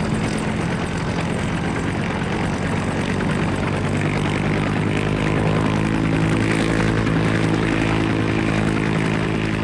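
Helicopter engine and rotor running steadily, a continuous low drone with even tones that strengthens a little about halfway through.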